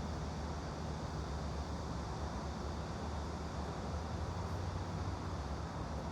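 Steady background noise, mostly a low rumble with a softer hiss above it. No separate sounds stand out.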